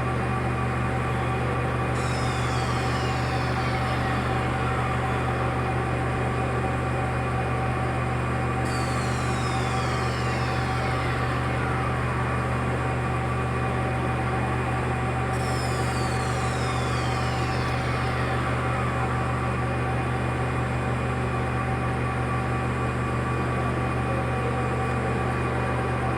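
CNC machine running with a steady low electrical hum and constant tones, while three times, about six and a half seconds apart, a high whine sweeps down in pitch over a few seconds.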